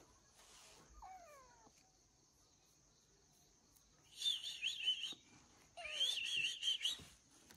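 Bird song: two spells of high, quickly warbling whistled notes, about a second each, beginning about four seconds in.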